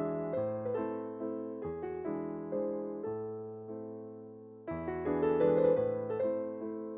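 Background music: a gentle piano piece, notes and chords decaying, growing louder about two-thirds of the way through.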